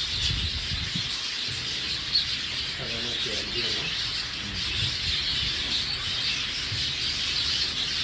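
Many budgerigars chattering together, a steady high twittering and chirping without pause.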